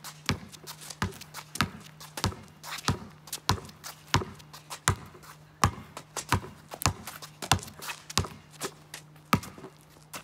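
A basketball being dribbled on a concrete driveway: a steady run of sharp bounces, roughly one every two-thirds of a second, with lighter taps between, over a faint steady low hum.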